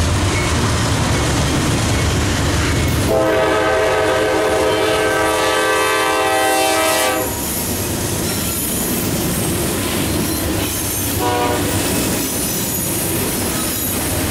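Freight train led by GE Dash 9-40CW diesel locomotives running toward the listener, engines rumbling; the lead unit sounds its horn in one long chord of about four seconds, starting about three seconds in. The locomotives then pass and autorack cars roll by with steady wheel-on-rail noise.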